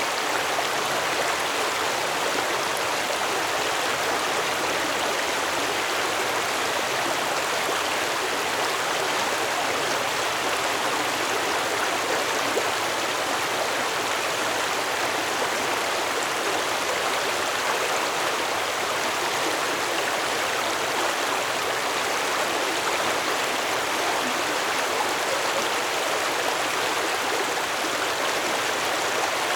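Stream water flowing steadily over rocks, an even rushing and babbling with no change across the stretch.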